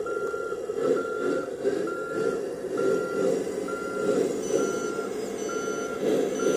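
Reversing beeper of a 1/14-scale RC Iveco 8x8 dump truck's sound module, a steady high beep of about half a second repeating roughly once a second as the truck backs up, over the truck's continuous engine rumble.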